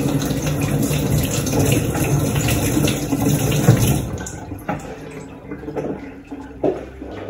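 Kitchen tap running into the sink while sweet potatoes are rinsed under it, steady for about four seconds before it goes quieter, with a few knocks of handling near the end.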